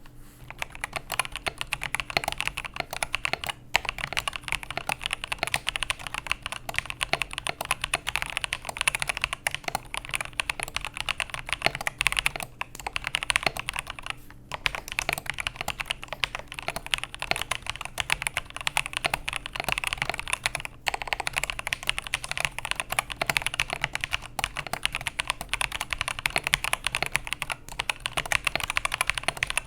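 Typing on an Attack Shark K86 mechanical keyboard fitted with its stock switches: a fast, continuous run of keystroke clicks, broken by a few short pauses.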